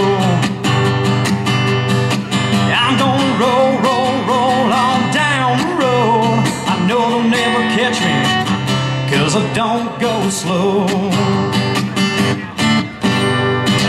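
A man sings a country song, strumming chords on a Takamine acoustic guitar.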